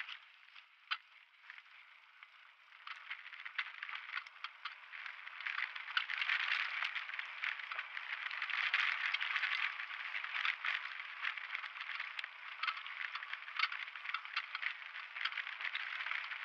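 Downhill mountain bike rattling as it rolls fast over a rough, rutted dirt trail, with many sharp clicks and knocks. The noise grows louder a few seconds in and stays loud.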